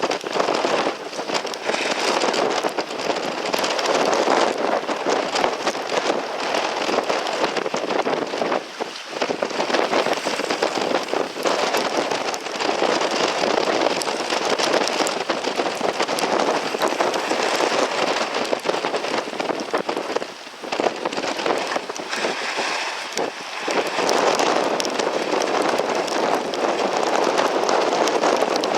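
Water rushing and spraying around a Finn dinghy sailing in a 20–28 knot blow, with wind buffeting the microphone. The noise is loud and steady, spattered by spray, and drops back briefly twice.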